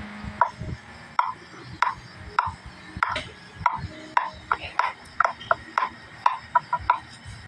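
Background music: a light tune of short notes, several a second, over a soft low pulse.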